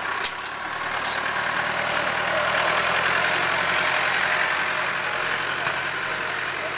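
Tractor-mounted single circular saw cutting through hedge stems over the tractor engine running: a steady rushing noise that swells to its loudest about three seconds in, then eases. A sharp click just after the start.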